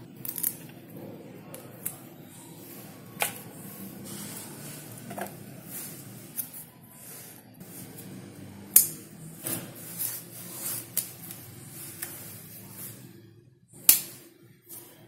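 Fibrous palmyra palm sprout being peeled and split apart by hand: irregular crisp snapping and tearing as strips of husk and fibre come away, the loudest snaps about nine seconds in and near the end.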